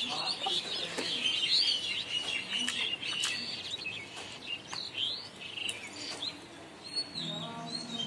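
Birds and fowl chirping and clucking, many short high chirps packed together in the first three seconds, then scattered single calls. Soft music comes in near the end.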